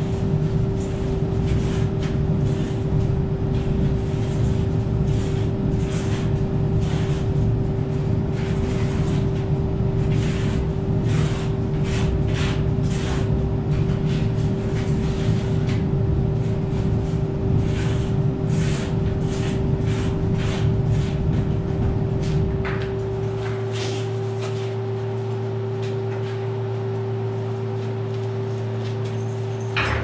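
Portable concrete mixer running, wet concrete churning and scraping in the turning drum with a steady motor hum. About 23 seconds in, the gritty churning drops away and the steady hum carries on.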